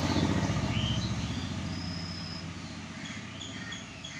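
A low rumble of a passing vehicle, slowly fading away, with short high chirps of small birds scattered over it.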